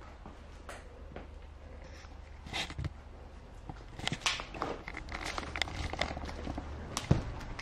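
Footsteps crunching and scuffing over a debris-strewn floor: irregular crunches and clicks, with a sharper knock about seven seconds in.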